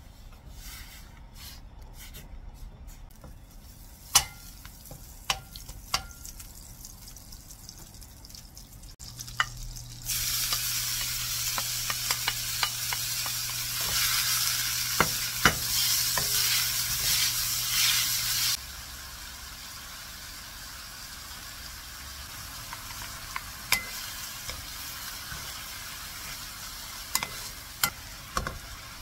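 Chopped yeolmu kimchi frying in butter in a pan and sizzling loudly for about eight seconds, then sizzling more quietly, stirred with a wooden spoon. Sharp clicks of a utensil against the cookware come at scattered moments.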